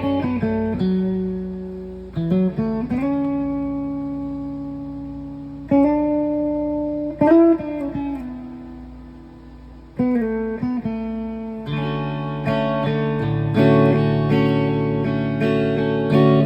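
Mexican-made Fender guitar played clean: single chords struck and left to ring out and fade, then, about two-thirds of the way through, quicker repeated strummed chords.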